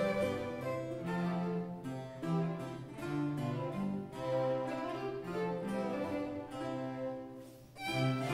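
Baroque chamber ensemble playing a trio sonata: two baroque violins over baroque cello, with harpsichord and baroque guitar filling in the harmony. Near the end the music falls away for a moment at a phrase break, then the full ensemble comes back in.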